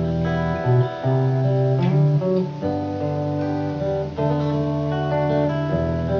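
Instrumental introduction of a song: guitar playing over long held notes, the chords changing every second or two.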